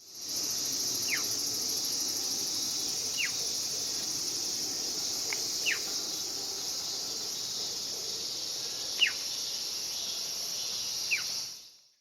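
Steady chorus of insects, with five short, sharp descending whistled calls from masked laughingthrushes spaced a couple of seconds apart, the loudest about nine seconds in.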